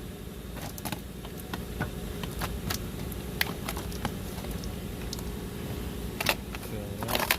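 Scattered light clicks and knocks from handling the loosened seatbelt pretensioner assembly as it is worked up through the seat trim, over a steady low hum.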